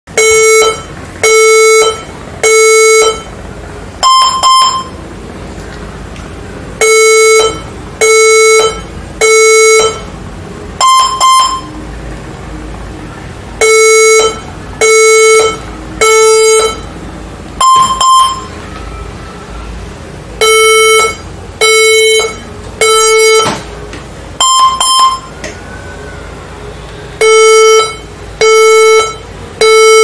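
HP ProBook 440 G7 laptop sounding its startup warning beeps: groups of three long, low beeps, each group followed by a short higher beep, repeating about every seven seconds. It is a hardware warning code that could come from dust blocking the fan, from overheating, or from a faulty display connection.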